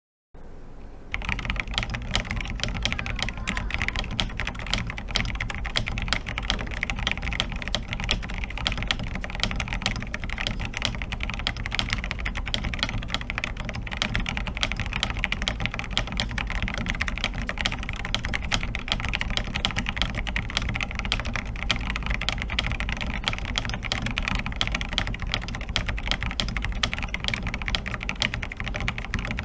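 Continuous fast typing on an FL-Esports OG87 mechanical keyboard with lubed Akko Rosewood switches, foams removed and PCB flex cuts sealed with baking soda and cyanoacrylate glue. Dense, even key clicks begin about a second in, over a low steady hum.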